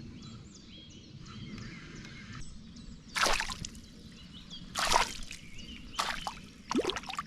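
Water splashing in four short, sharp bursts about a second apart as a small pike is handled at the water's surface.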